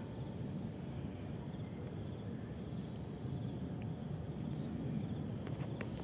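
Night insects, crickets, chirring steadily in several high, unbroken tones over a low, steady rumble.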